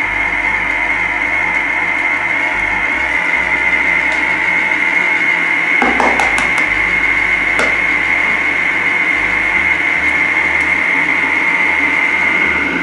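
Bimby (Thermomix) food processor running steadily at speed 3, mixing shortcrust pastry dough, with a high steady whine. A couple of short knocks near the middle as an egg is cracked at the lid opening and dropped in.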